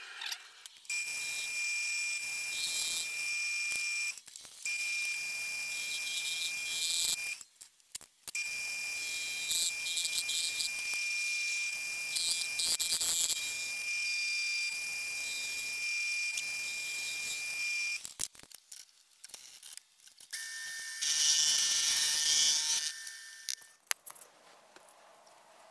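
Machine tool spindle running while cutting aluminum: a steady high whine with a hiss of cutting above it. It stops briefly twice, then cuts out, and runs again for a few seconds at a lower pitch near the end.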